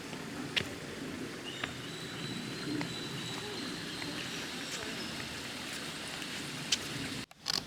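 Steady outdoor rainforest ambience, a hiss like running water, with a few light knocks of footsteps on the walkway and a thin high tone lasting a few seconds. The sound cuts out briefly near the end.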